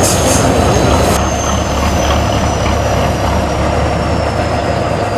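Tatra 815 8x8 trial truck's diesel engine running steadily under load as the truck crawls through mud, with a deep rumble and a faint high whine that slowly falls in pitch. A hiss sounds in the first second and cuts off suddenly.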